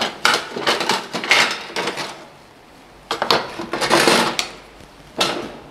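Clatter of kitchen utensils and dishes being handled on a countertop: irregular bursts of knocks and clinks with short ringing, a quiet gap of about a second in the middle.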